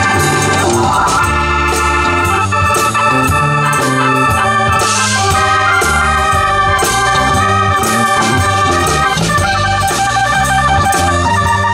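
Live rock band playing an instrumental passage without singing: electric guitars, bass and drums, with sustained organ-like keyboard chords standing out.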